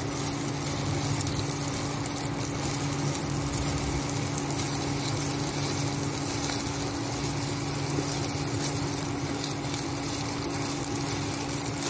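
Egg frying in oil in a nonstick pan, sizzling steadily while a plastic slotted spatula scrapes and breaks it up. Under it runs a steady low hum from the induction cooktop.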